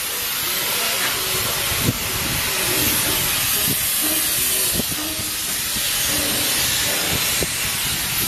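Steady hiss of a spray gun applying corrosion-resistant coating to the welded joints of steel solar reflectors, with a few light knocks.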